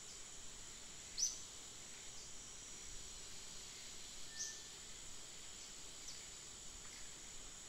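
Forest ambience: a steady, high insect drone, with a few short, sharp chirps from birds. The loudest chirp comes about a second in and another about four seconds in.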